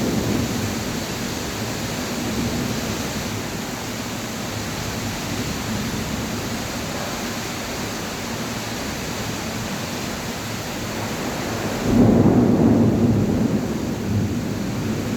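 Heavy rain falling steadily in a dense hiss. About three-quarters of the way through, a louder low rumble rises suddenly and slowly eases.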